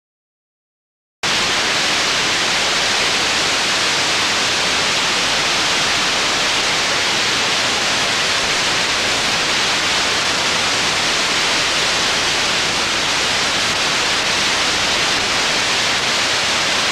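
Loud, steady static hiss of video snow, starting abruptly about a second in out of dead silence.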